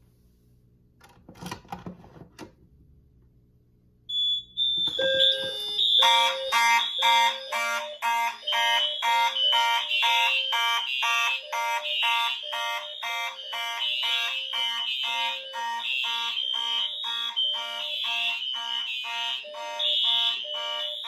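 Fire alarm horns on a Simplex 4120 fire alarm network sounding together in a network-wide manual evacuation. A short clatter comes about a second in. A high tone starts about four seconds in, and from about six seconds many horns pulse together at roughly two beats a second over a steady high tone.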